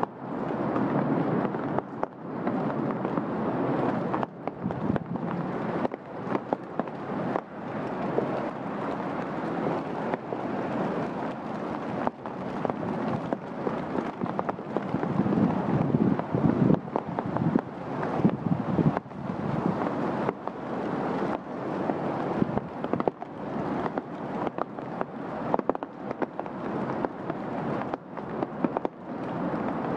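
Steady rain falling on trees and garden foliage, with wind rumbling on the microphone that swells and dips, loudest about halfway through.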